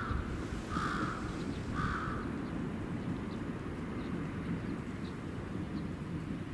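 A bird calls three times in quick succession over a steady low outdoor rumble.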